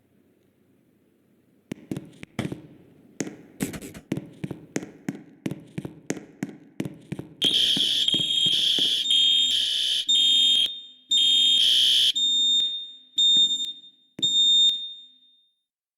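School fire alarm sounder giving a loud, high-pitched electronic tone in long blasts, then a few shorter chirps before it stops. Before it starts there is a run of sharp clicks, about three a second.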